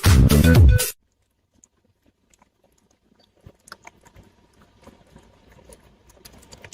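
Electronic dance music that cuts off suddenly about a second in, followed by near silence and then faint scattered clicks and a low rustle.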